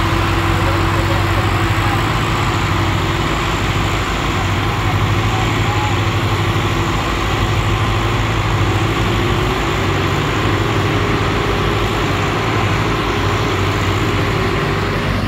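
Diesel engines of several farm tractors running steadily at idle. A low, even chugging, with a hum that edges slightly higher in the last few seconds.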